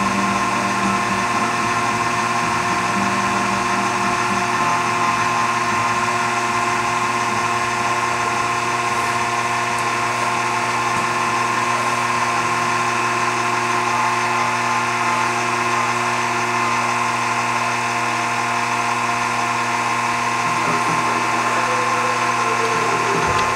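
Motor drive and gear train of a homemade ornamental lathe running steadily, a constant whine of several steady tones, while it drives a pen through an eccentric-cam pattern. The sound cuts off abruptly at the end.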